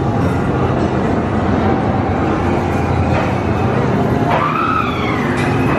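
Haunted-house maze soundtrack playing loudly: a dense, steady rumbling din, with a wailing cry that rises and falls about four and a half seconds in.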